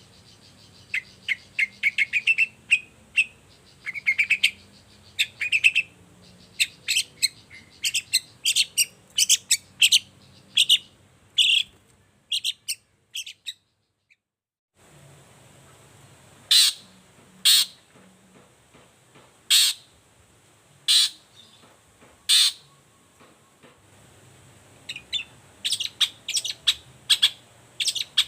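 Long-tailed shrike singing: rapid runs of short, sharp chattering notes that break off briefly about halfway through, then a few single loud calls spaced a second or two apart, and quick chatter again near the end.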